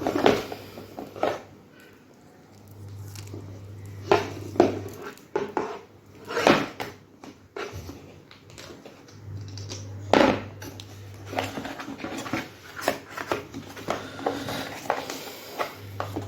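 Handling noises from unpacking a laptop charger: a series of separate knocks, clicks and rustles of the charger and its packaging. A low hum comes and goes underneath.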